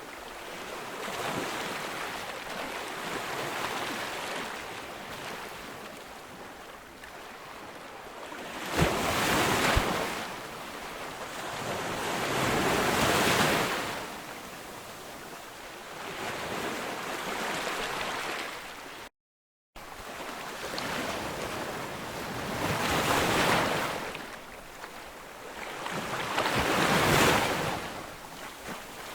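Ocean waves breaking on a beach: a continuous hiss of surf that swells into louder crashes about four times, with the audio cutting out completely for half a second about two-thirds of the way through.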